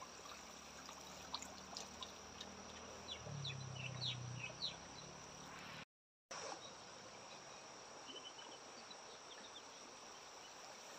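Faint outdoor ambience by the water: a steady high insect drone, with scattered light ticks and drips over the first five seconds. The sound drops out completely for about half a second just before six seconds in, then the faint drone and hiss carry on.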